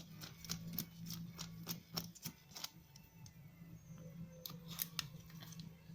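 Irregular light metallic clicks, several a second and thinning out after the first few seconds, from a hand tool working bolts out of a Delphi CA3 car AC compressor.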